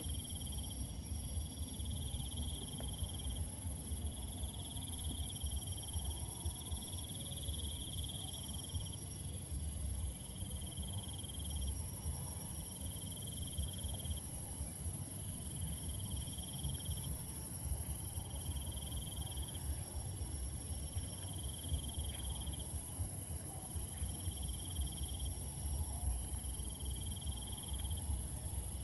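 Night insects chirring: a steady high-pitched trill, with a lower trill that pulses in phrases of about two seconds, over a low rumble.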